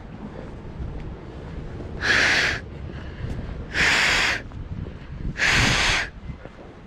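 Three breaths blown hard into cupped hands to warm them, each a breathy whoosh about half a second long, spaced about a second and a half apart.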